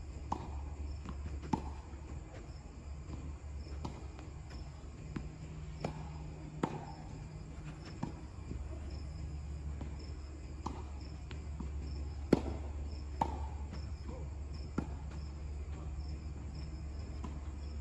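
Tennis rally: rackets striking the ball and the ball bouncing on the court, a sharp pop every second or two, the loudest about twelve seconds in. Insects chirp and a steady low hum runs underneath.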